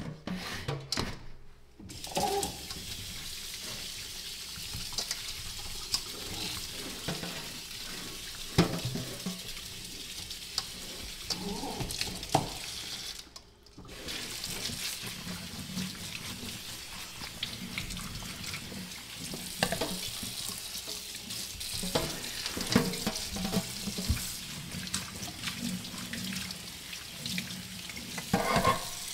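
Kitchen tap running into a stainless steel colander of Roma tomatoes in the sink, with light knocks as the tomatoes are turned by hand against the metal. The water starts about two seconds in and breaks off briefly about halfway through.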